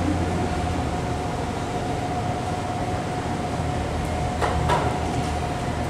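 Steady low hum with a thin steady whine above it, like a room's ventilation or machinery running; two short faint noises near the end.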